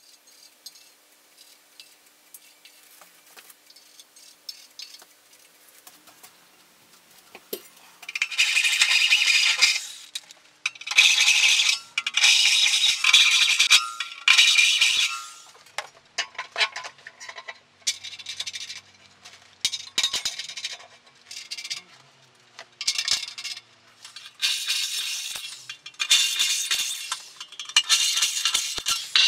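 Cordless drill boring a series of holes through the thin steel shell of an old water heater, a run of about ten loud, harsh bursts of a second or two each, starting some eight seconds in. Before that, light metallic clinks and rattles of parts being handled.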